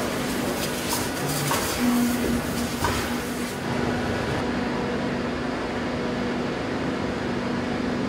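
Steady hum of workshop machinery in a footwear factory, with a few light clicks and knocks in the first three seconds.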